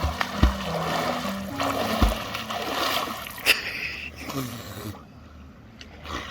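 Water splashing as someone moves about in a lake, with a few sharper splashes. A low music melody runs under the first half, then the splashing quiets down near the end.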